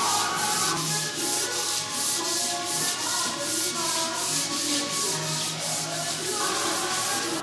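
Wood being hand-sanded with a sanding block: a raspy hiss in quick, even back-and-forth strokes, with faint background music underneath.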